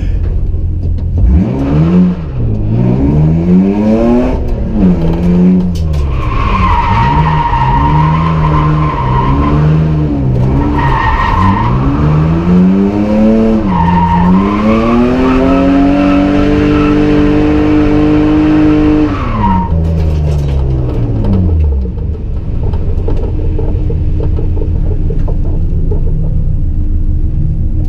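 BMW E39 528i straight-six engine revving up and down as the car drifts, with the tyres squealing from about six seconds in until near twenty seconds. The engine then drops back to a steady idle.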